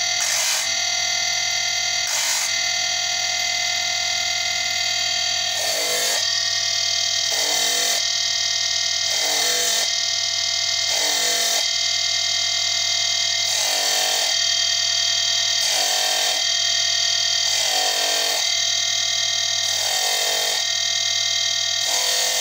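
Background music of held, layered tones that shift together about every two seconds.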